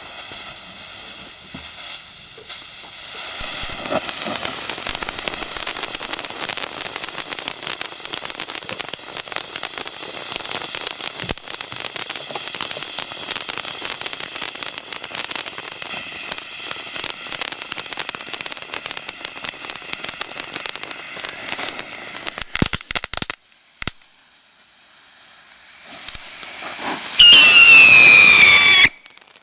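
Skull-shaped fountain firework (Bones, JL21132X) going off: the fuse fizzes, then a long shower of crackling sparks plays for about twenty seconds, with a few sharp pops near the end of it. After a short lull, a hiss builds into a loud whistle that falls in pitch as jets of sparks shoot out of the sides of the skull.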